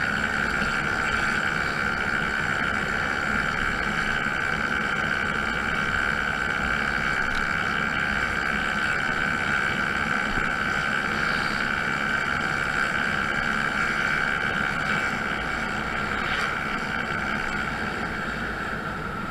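Honda Zoomer scooter's 49cc four-stroke single-cylinder engine running at a steady riding speed, with a constant high drone; it eases off a little near the end.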